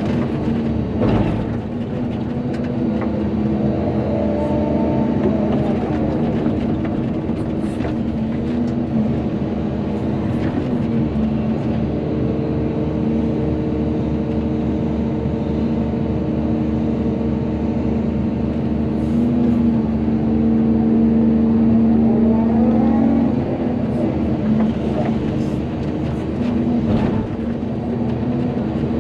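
Volvo EC220DL excavator's diesel engine running steadily under working load. A whine rises and falls twice as the hydraulics work, and there are occasional sharp knocks.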